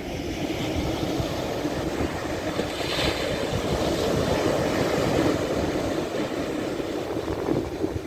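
Ocean surf: a long-period swell wave breaking on a sandy beach. The rumble swells up at the start, the wave crashes with a hissing burst of foam about three seconds in, and the wash runs on up the sand.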